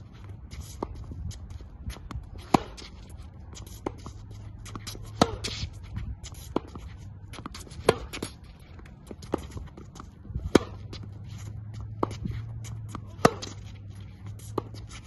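Tennis ball struck by a racket in a hard-court forehand rally: a sharp pop about every two and a half seconds, with fainter pops and ball bounces in between.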